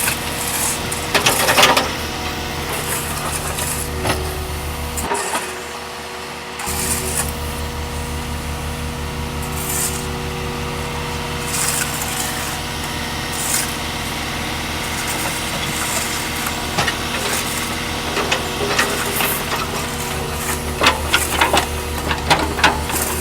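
Heavy diesel machinery running at a steady idle, with scattered knocks and short bursts of hissing air over it.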